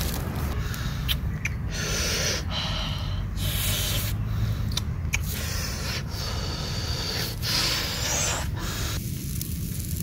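Footsteps crunching and rustling through dry leaves and twigs: several separate steps, each about half a second to a second long, over a steady low rumble.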